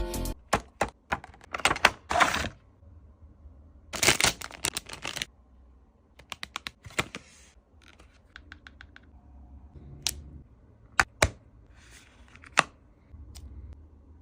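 Items and packaging being handled up close: scattered sharp clicks and taps mixed with short bursts of rustling and crinkling, with a few single loud clicks in the second half.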